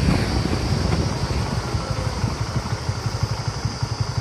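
Motorcycle engine running under way, a low, even pulsing beat that eases slightly toward the end.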